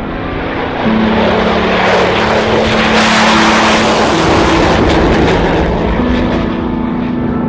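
F-16 fighter jet taking off and climbing away: a loud jet rush that builds about a second in, peaks midway and eases off near the end. Background music with sustained notes runs underneath.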